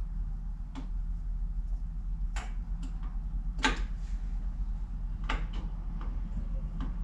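About six sharp clicks and knocks of metal parts and tools being handled while the lathe carriage is put back together, spaced irregularly, the loudest about halfway through, over a steady low hum.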